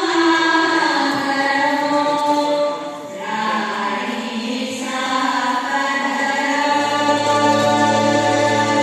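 Rajasthani-themed dance music: a chorus of voices singing long held notes, with a low steady drone coming in about seven seconds in.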